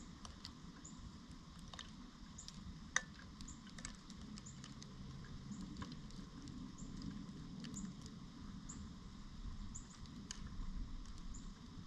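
Faint outdoor ambience: a low, steady wind rumble with scattered light high ticks and chirps every half second or so.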